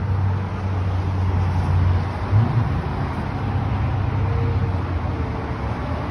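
A low, steady engine rumble over general outdoor background noise, easing off about five seconds in.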